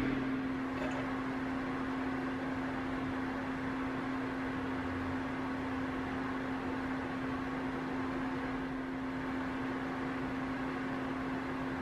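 A steady mechanical hum: one constant low tone over an even hiss, unchanging throughout.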